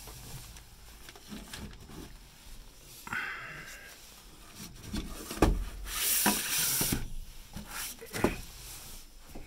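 A cardboard tissue box handled on a wooden shelf: rustling, with a few knocks against the wood, the sharpest about halfway through, and a second of hissy rustling just after it.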